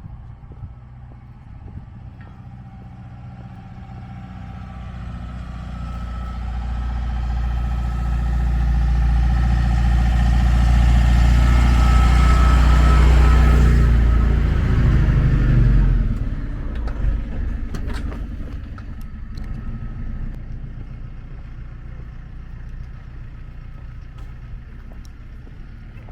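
A motor vehicle passing close by: its engine and tyres build up gradually, are loudest about halfway through, then drop in pitch and fade away.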